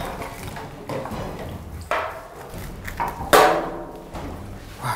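Kitchen work sounds: a few separate knocks and clinks of utensils and cookware, the loudest about three seconds in.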